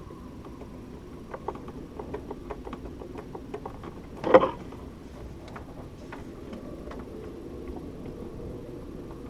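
Light irregular ticks and clicks, about two or three a second, with one louder clack about four seconds in, over a faint steady hum.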